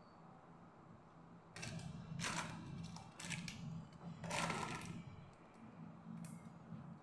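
Sweet potato leaves and stems rustling and snapping as they are stripped by hand, in a few short bursts from about a second and a half to five seconds in, with small ticks after, over a faint low hum.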